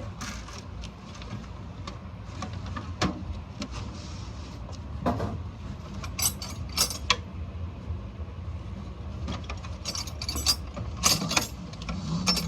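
Small metal clicks and taps as carburetor parts and hand tools are handled while the main jet is worked on, some in quick clusters, over a steady low rumble.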